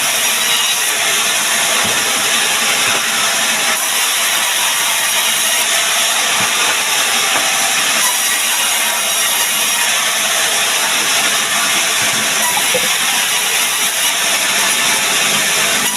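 A woodworking machine working sengon wood, running with a loud, steady, even hiss that does not change.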